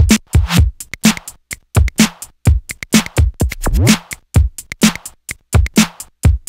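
Electronic intro music with a drum-machine beat, a low kick and sharp hits about twice a second, and a rising synth sweep near the middle.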